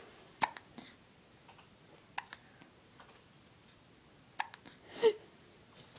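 Baby hiccuping: a few short, sharp hiccups a couple of seconds apart, the loudest near the end with a brief voiced squeak.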